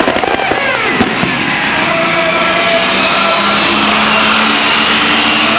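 A modified White pulling tractor's diesel engine running hard under full load as it drags the weight sled, with a faint high whine rising slowly through the pull.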